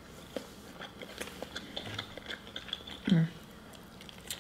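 Close-miked eating sounds: soft clicks and crackles of chewing and of fingers pulling apart saucy seafood-boil food, with a short hum from the eater about three seconds in.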